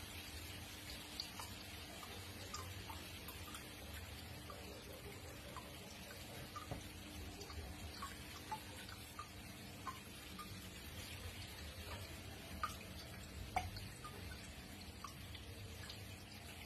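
Aquarium water trickling steadily, with scattered small drips and plinks of bubbles and a faint steady hum underneath.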